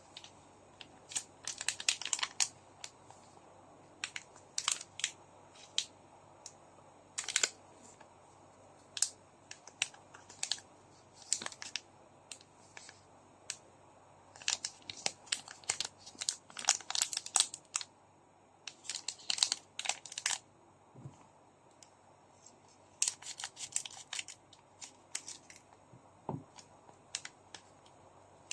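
Foil trading-card pack wrappers crinkling and tearing as packs are opened by hand, in short irregular bursts of crackle with pauses between.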